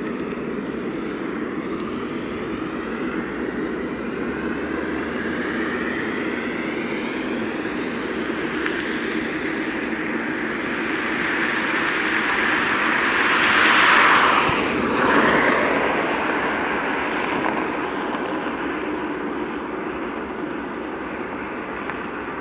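Jet airliner passing along the runway: steady engine noise with a slowly sweeping, phasing quality, building to its loudest about two-thirds of the way through, dipping for a moment, then fading.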